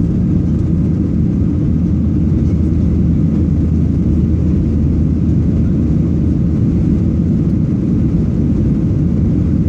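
Steady low rumble of a jet airliner's engines and airflow, heard from inside the passenger cabin.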